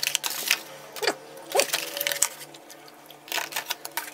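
A metal spoon scraping and knocking against a black plastic takeaway container as food is scooped out, in a run of short clicks and scrapes, with two brief falling squeaks from the plastic a little after one second in.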